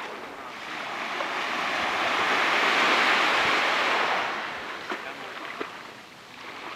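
Sea waves washing up on a beach. One surge swells to its peak about three seconds in and fades by about six seconds, and the next begins to build near the end.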